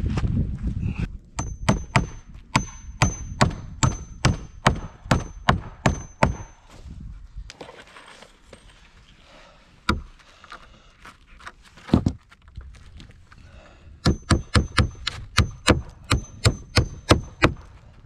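Claw hammer driving 3-inch common nails into rough-sawn wooden planks: two runs of quick blows, about three a second, each run with a high ringing note, and a couple of single blows in the pause between them.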